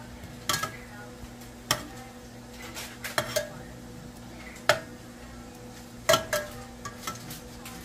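Metal kitchen tongs clinking against a stainless steel pot as cooked shrimp are lifted out one by one: about seven sharp, separate metallic clinks over a steady low hum.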